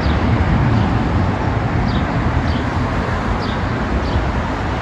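Steady low outdoor rumble, with short, high, falling chirps repeating every half second to a second over it.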